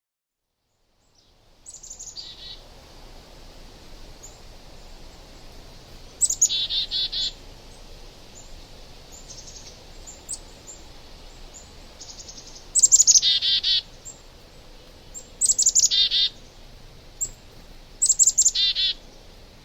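A songbird singing: five short phrases of quick, high, descending notes, each about a second long, with single faint chirps between them.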